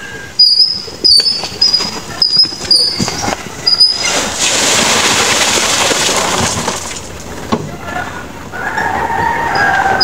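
Metal wheelbarrow clanking and squeaking as it is wheeled, with several sharp knocks in the first few seconds. Then the load is tipped out with a loud rushing slide that lasts about three seconds.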